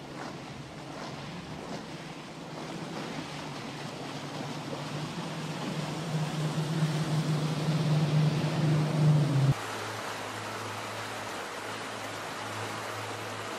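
Outboard engines of a patrol boat running at speed over the rush of water and wind, the engine drone growing louder as the boat comes alongside. About nine and a half seconds in, the sound cuts abruptly to a quieter, steady engine drone with hissing water.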